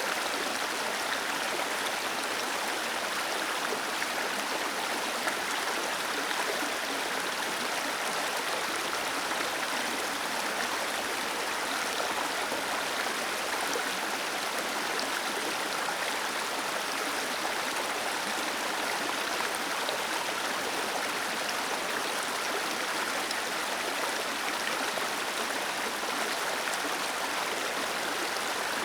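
Waterfall cascading gently: a steady, even rush of falling water, with little deep rumble.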